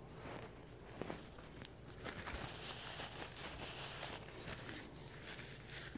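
Faint chewing with a few crisp clicks, then a paper napkin rustling as it wipes the mouth, from about two seconds in.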